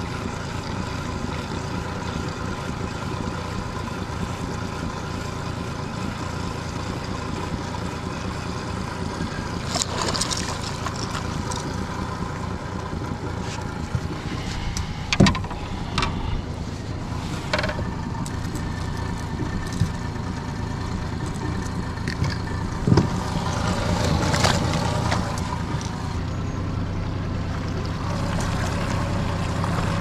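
A boat's motor running steadily, heard as a constant hum. A few sharp knocks sound in the boat, the loudest about halfway through.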